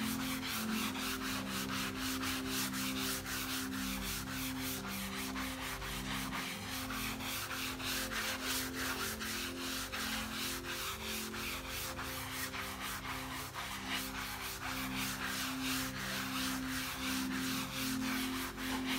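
Soapy sponge scrubbing a mouse pad with quick back-and-forth rubbing strokes, a steady rhythm of about four strokes a second.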